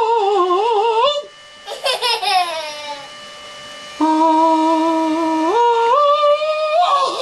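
A high voice drawing out sung or hummed vowels: a wavering note, a falling slide, then a long held note that steps up in pitch partway through.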